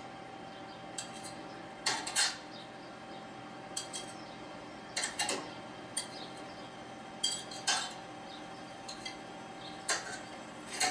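A knife clinking against a plate and a metal Yorkshire pudding tray as small lumps of lard are put into each cup: sharp clinks every second or two, several in quick pairs.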